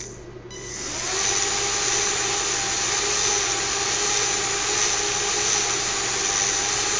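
Small fischertechnik electric motors spinning propellers, with a steady high whirr. The whirr falls away at the start and spins back up within about a second, then runs evenly.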